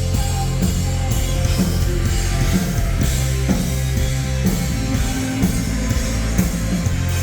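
Rock band playing live: drums and cymbals over a dense, steady wall of bass and guitar.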